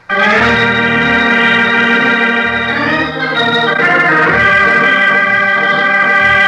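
Organ music bridge leading from the commercial back into the story: held chords that start suddenly and change chord a few seconds in.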